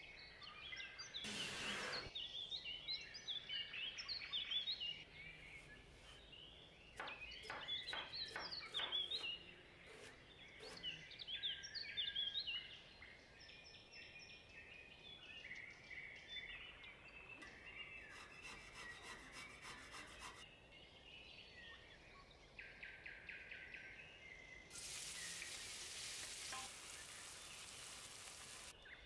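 Birds chirping and singing in the background, with scattered knocks and clicks from kitchen work. Near the end, chopped onion sizzles in hot oil in a frying pan for a few seconds.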